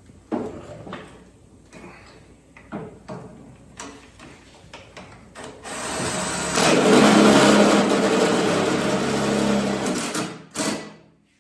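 Scattered knocks and clicks of handling tools and parts, then a power tool's electric motor runs steadily for about four seconds and stops, followed by a clack.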